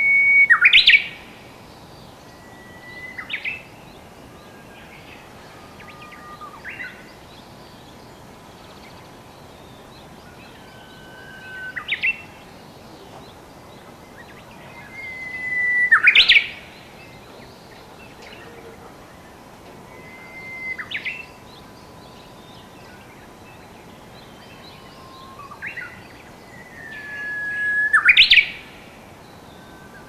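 Japanese bush warbler (uguisu) singing its hō-hokekyo song: a held whistled note that swells in loudness, then a quick sharp flourish. Three full songs come at the start, about halfway and near the end, with fainter, shorter phrases between.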